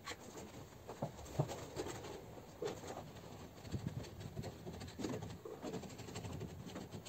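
Hand-finishing of a gypsum plaster arch: faint, irregular scraping and rubbing with a few light taps.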